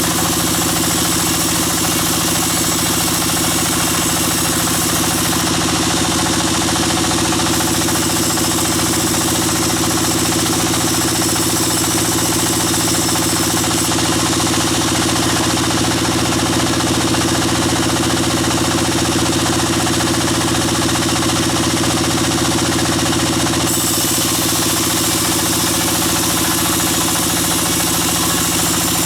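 Bandsaw sawmill machinery running steadily: a constant mechanical drone that does not change.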